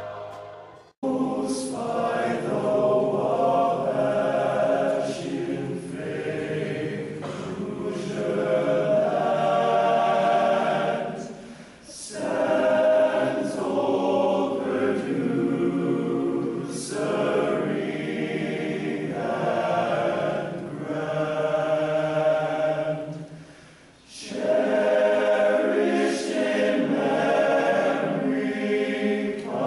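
A choir singing, a new piece starting about a second in after a brief cut, with short pauses between phrases near 12 and 24 seconds.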